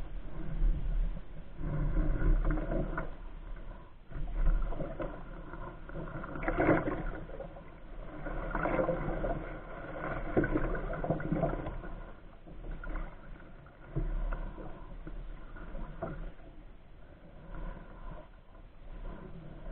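Canoe paddle strokes dipping and pulling through calm water, with water gurgling along the hull, swelling and fading about every two seconds.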